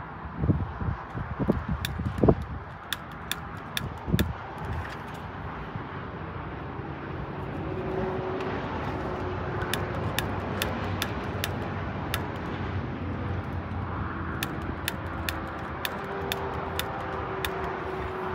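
Repeated sharp clicks, irregularly spaced, of a lighter being worked at the burner of a small portable propane grill with the gas on; the burner does not catch yet. A few low bumps sound in the first few seconds over a steady outdoor background.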